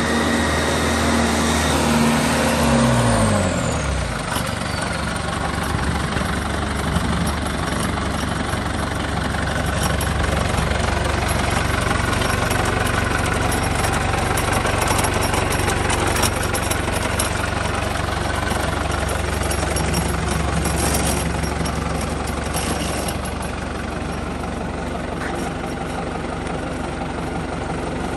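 New Holland TNF90 tractor's diesel engine running as the tractor drives up, its revs dropping away about three seconds in, then idling steadily.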